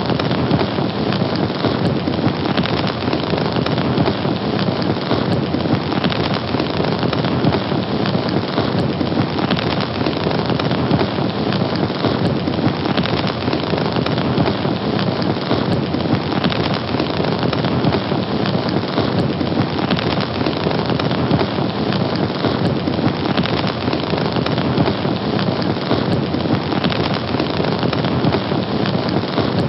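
A fire burning: a steady rushing noise filled with dense, continuous crackling.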